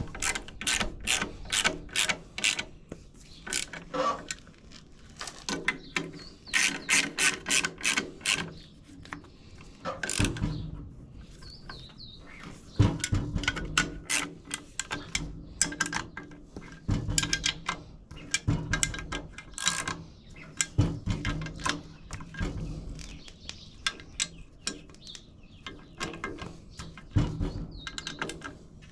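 Ratchet wrench clicking in quick repeated runs, with short pauses between them, as the clutch pressure plate bolts are run down snug ahead of torquing.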